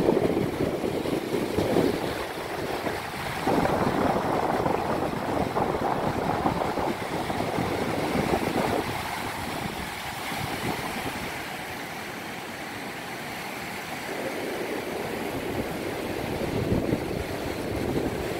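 Small Black Sea waves breaking in the shallows and washing up a sandy beach as a steady rush of surf. The rush swells a few seconds in, eases off in the middle, then builds again near the end.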